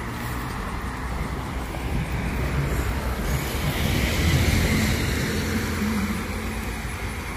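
Road traffic: a vehicle passing by, swelling to its loudest about halfway through and then fading.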